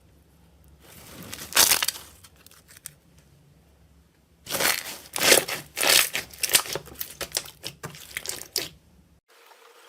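Slime being squeezed and pressed by hand, making irregular crackling pops. There is a short bout about a second and a half in, then a longer run of rapid crackles from about halfway until it cuts off suddenly near the end.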